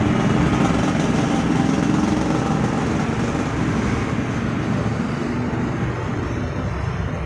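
Steady street traffic noise, a continuous low rumble of passing engines.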